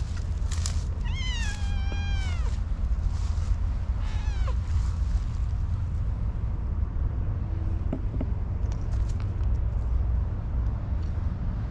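Orange tabby cat meowing twice: a long meow about a second in that drops in pitch at its end, then a short meow around four seconds in, over a steady low rumble.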